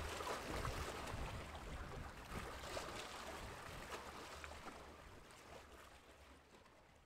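Wind rumbling on the microphone with small waves lapping, the whole sound fading out steadily.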